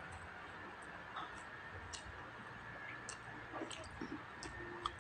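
Eating by hand: scattered small wet clicks and smacks of chewing and lips, with light sounds of fingers picking at fried dried fish and rice, over a faint steady background hiss.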